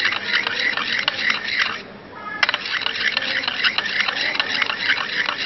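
Spatula scraping and squeaking around a porcelain dish in rapid strokes, about four a second, with a short pause about two seconds in: cold cream being stirred in one direction as it congeals.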